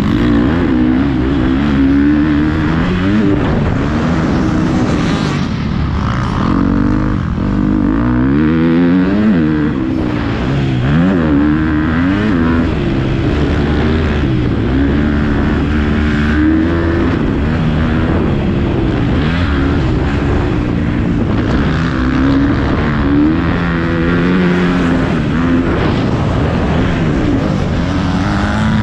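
Several motocross bikes racing, their engines revving up and down with many pitches rising and falling over one another.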